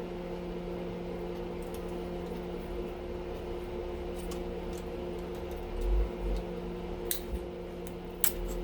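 A steady mechanical hum, with a few low knocks and sharp clicks in the second half as circuit breaker parts are handled.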